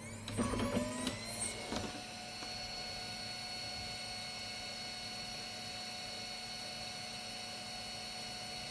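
Kyocera FS-1130 laser printer starting up on a test run: clicks and a motor spinning up in the first two seconds, then a steady, even whir. There is no grinding, the sign that its worn fuser gears have been replaced with new ones.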